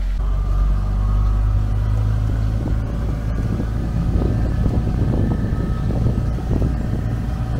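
ATV engine running steadily under way on a dirt road, with rough, uneven noise from the ride and wind joining in from about halfway.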